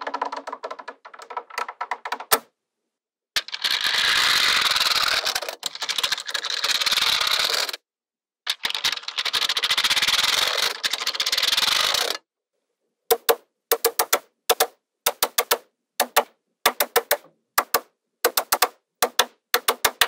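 Small magnetic balls clicking and clattering as they snap together: rapid clicking at first, two long stretches of continuous clatter in the middle, then short clusters of ringing clicks about twice a second near the end as balls are pressed into place one at a time.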